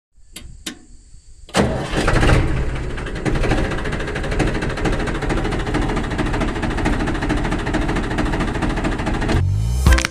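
A small engine starts about a second and a half in after a few clicks, runs steadily, and cuts off near the end.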